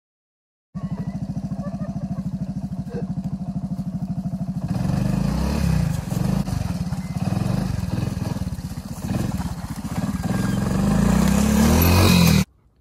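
Honda ATC 125 three-wheeler's single-cylinder four-stroke engine idling with an even putter, starting about a second in. About five seconds in it is throttled up and pulls harder, growing loudest near the end before cutting off.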